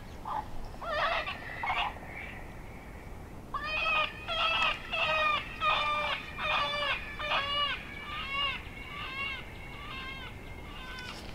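FoxPro X-Wave electronic predator call playing a rabbit distress sound, used to call in coyotes. A few scattered cries come first, then from about three and a half seconds a run of about a dozen short pitched cries that grow fainter toward the end.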